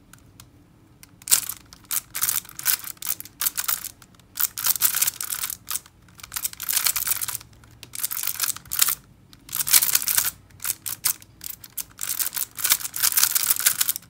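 Xiaomi GiiKER i3S smart Rubik's cube being speed-solved: fast runs of plastic clicking and clacking as the layers are turned, in bursts with short pauses between them. The turning starts about a second in.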